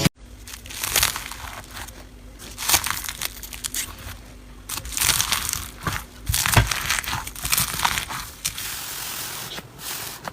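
Slime being squeezed and worked by hand, giving irregular bursts of sticky, crackly sound about a second apart.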